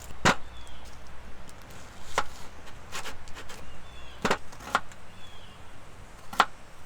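Wood campfire of fat wood crackling, with about six sharp, irregularly spaced pops and snaps.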